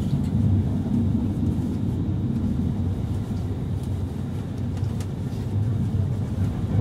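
Steady low rumble of a passenger train running along the track, heard from inside the carriage, with a faint click about five seconds in.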